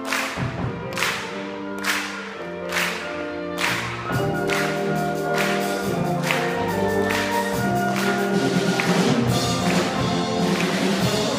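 A student wind band plays: brass and woodwinds hold chords over regular percussion strikes about once a second. The full band comes in more densely about four seconds in, growing a little louder toward the end.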